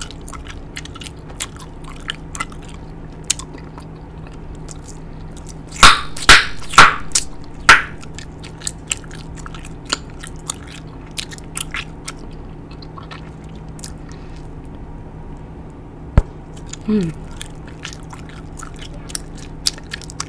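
Big League Chew bubble gum chewed close to the microphone: wet clicks and smacks throughout, with four loud snaps about six to eight seconds in and one sharp click near the end.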